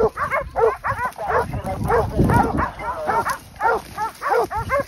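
Hunting hounds barking rapidly and without pause, several voices overlapping at different pitches, about three barks a second. They are baying a group of wild boar that they hold at bay.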